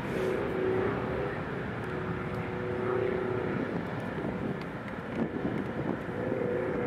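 Boeing 737-800's CFM56-7B turbofan engines at take-off power, heard from behind as the jet rolls away down the runway: steady jet noise with a held humming tone.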